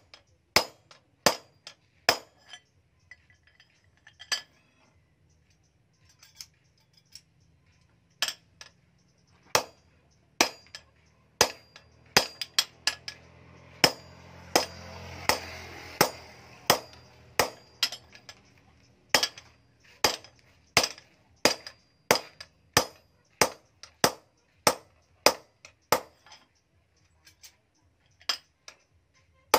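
Hammer blows on a steel stamping punch held in tongs against a forged axe head on an anvil, sharp ringing clinks at roughly one to two a second as a decorative pattern is punched into the steel. The strikes pause for a few seconds after the start, and a hiss swells and fades around the middle.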